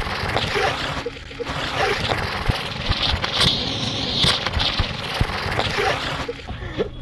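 Anar fountain firework with four chakkar ground spinners attached, burning: a continuous rushing hiss of spraying sparks with sharp crackles. Over it runs a whirr that rises and falls in pitch again and again as the spinners spin loose.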